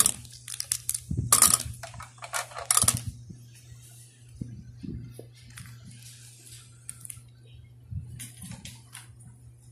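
Plastic clothespins clicking and tapping as they are handled and set down on a hard floor: a run of sharp clicks in the first three seconds, then scattered lighter taps. A steady low hum runs underneath.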